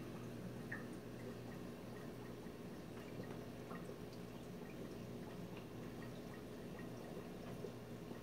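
Reef aquarium running: water trickling with scattered small drips over a steady low hum.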